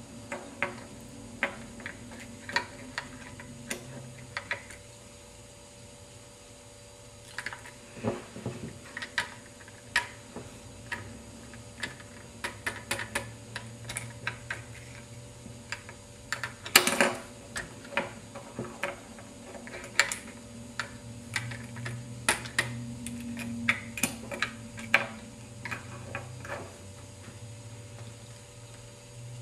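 Irregular small plastic clicks and ticks from a Lego model garbage truck being handled and worked by hand, with a louder clatter about 17 seconds in, over a steady low hum.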